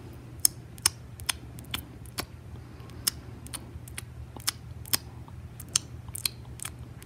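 Sharp plastic clicks, irregular, about two a second, from a toy baby bottle held in a Baby Alive doll's mouth while it is fed, over a faint steady low hum.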